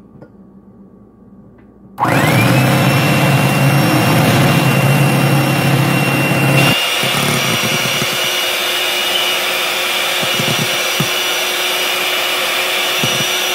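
Electric hand mixer switched on about two seconds in, its motor whining up to speed and then running steadily as its beaters whip instant coffee, sugar and hot water into foam. Its note shifts a little about halfway through.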